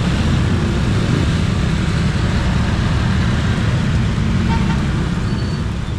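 Loud, steady low rumble of passing vehicles, easing off slightly near the end.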